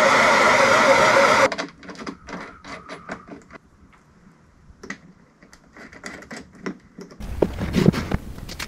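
Handheld propane torch burning with a steady hiss, shut off about a second and a half in. Then light clicks and knocks as heavy copper battery cables with crimped lugs are handled, with a few louder knocks near the end.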